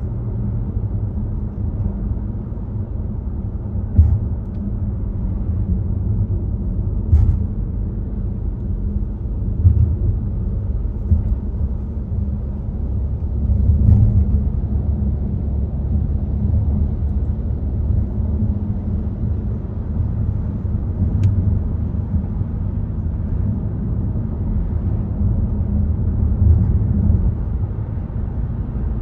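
Volvo XC60 driving along at speed: a steady, muffled low rumble of road and engine noise, with a few brief knocks from bumps in the road.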